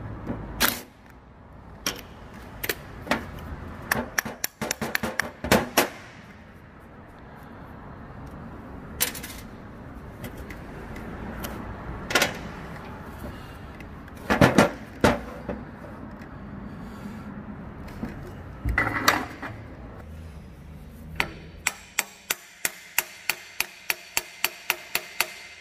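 Hammer knocking on metal parts of a rice transplanter's planting arm: scattered single knocks and short clusters, then near the end a steady run of light taps about three a second.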